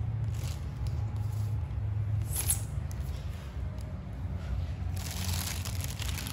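Thin clear plastic bag crinkling as a cat moves inside it: brief rustles about half a second and two and a half seconds in, then a longer stretch of crinkling near the end, over a steady low hum.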